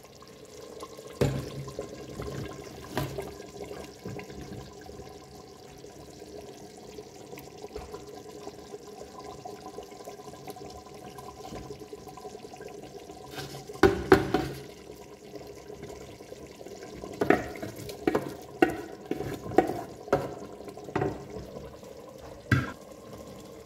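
Mashed chana dal being tipped and scraped from a steel pan into a clay pot, then worked in with a wooden spoon: scattered knocks and clatters against the pot, loudest about 14 seconds in, and a run of sharp taps near the end. A steady low hum runs underneath.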